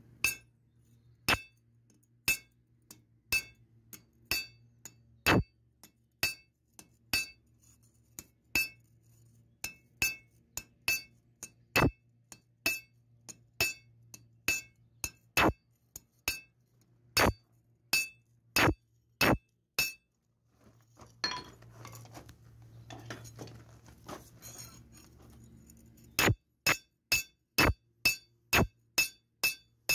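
Hand hammer striking a hot iron knife blade on an anvil, each blow ringing, at about one blow a second. The hammering stops for a few seconds past the middle, then resumes faster, about two blows a second.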